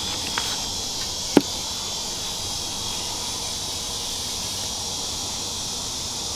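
Steady high-pitched drone of insects outdoors, with one sharp click about a second and a half in.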